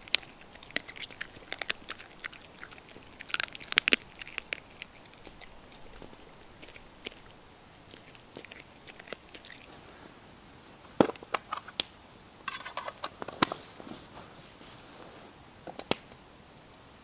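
Dog chewing and crunching on something picked up from the forest floor: irregular small crunches and clicks, with one sharper crack about two-thirds of the way through.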